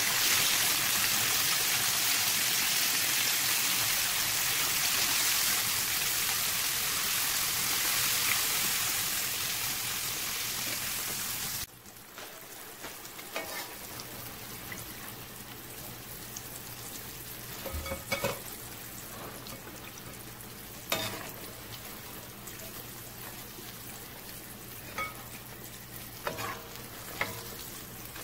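Battered tofu deep-frying in a wok of hot oil: a loud, steady sizzle that cuts off suddenly about twelve seconds in. After that comes a quieter stretch with a low steady hum and a few sharp clicks of a metal skimmer against the wok.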